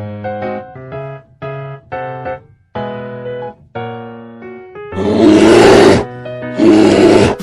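Light piano music, then an animal roar sound effect sounding twice near the end, each about a second long and louder than the music.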